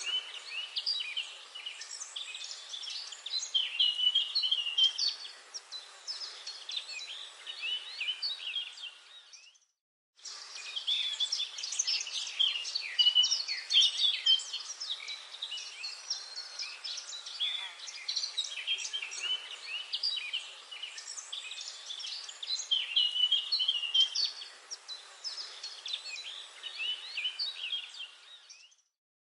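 Forest birdsong: many birds chirping and singing at once in a dense chorus of short, high calls. The sound fades to silence for about half a second roughly ten seconds in, then comes back, and fades out again near the end.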